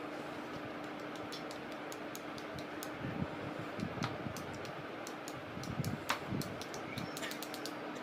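Light taps of one paintbrush knocked against another to spatter white paint dots for stars, a run of duller knocks in the middle, among scattered sharp little clicks over a faint steady hum.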